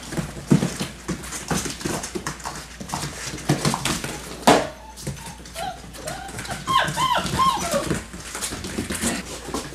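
Six-week-old Labrador Retriever puppies playing: scuffling, with many small clicks and a sharp knock about halfway through. From about six to eight seconds in comes a run of short, high whimpers and yips.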